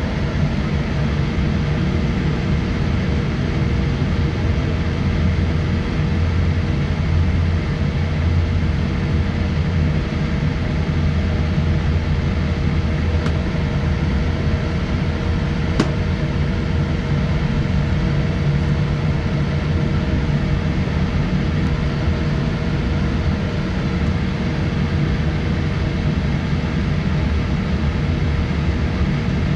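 Cabin noise inside a Boeing 787-8 Dreamliner as it taxis: a steady low rumble with an even hum over it.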